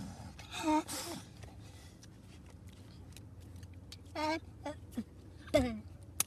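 A man's wordless vocal cries: three short yelps, each quickly falling in pitch, about a second in, about four seconds in and near the end, over a steady low hum.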